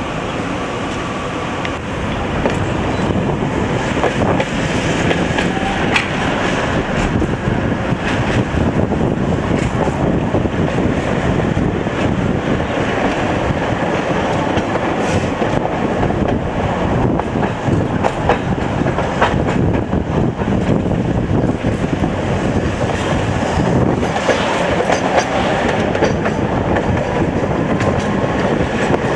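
Tatra T3 tram running, heard from inside the car: a steady rumble with wheels clicking over the rail joints. It gets louder about two seconds in as the tram picks up speed, and a faint rising whine comes in near the end.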